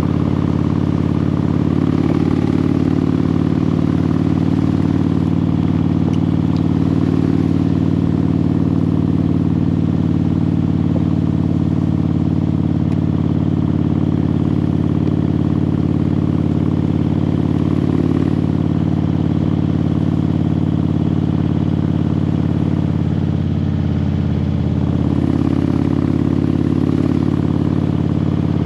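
An engine running at a steady speed: a constant, loud, low drone with no change in pitch.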